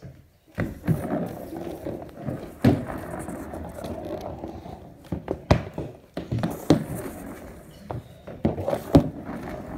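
Heelys wheels rolling over a hardwood floor, a continuous rumbling, broken by about five sharp knocks of shoes landing or stepping on the boards.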